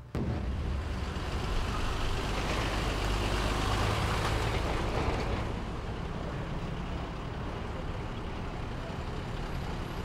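Military convoy of army trucks and an armoured vehicle driving by: a steady engine rumble with road noise, starting abruptly and loudest around the middle.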